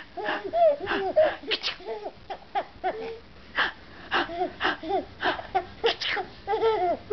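Baby laughing in many short, breathy bursts with high-pitched squeals.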